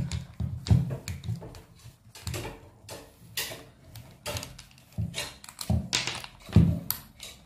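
Screwdriver backing screws out of the gear housing of a Makita angle grinder: many irregular sharp clicks and light knocks of metal on metal, with dull thumps as the grinder body shifts on the table.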